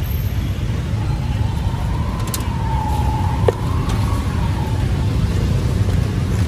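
Steady low rumble of street traffic. A thin tone wavers up and down for a few seconds in the middle, and a single sharp click comes about three and a half seconds in.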